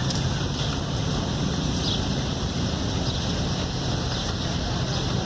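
Steady low engine rumble mixed with wind noise on the microphone, with a few faint short high chirps.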